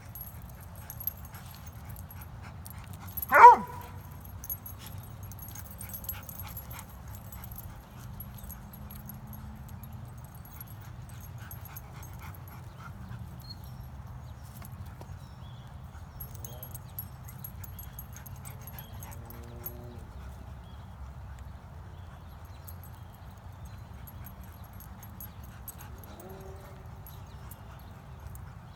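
Dogs playing: one dog gives a single short, loud bark about three and a half seconds in, and faint whines come a few times later, over a steady low hum.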